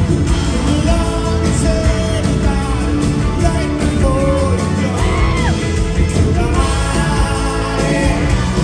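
Live rock band playing, with the lead vocalist singing over keyboards and electric guitar, recorded from the audience.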